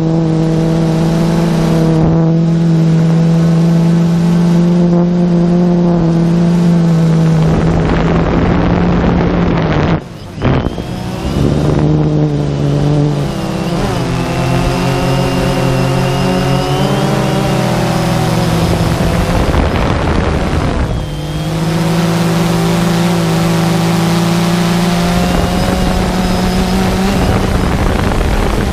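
A drone's motors and propellers, heard from its onboard camera: a steady pitched hum with wind rushing past. The hum cuts out briefly about ten seconds in, then comes back and shifts up and down in pitch as the throttle changes.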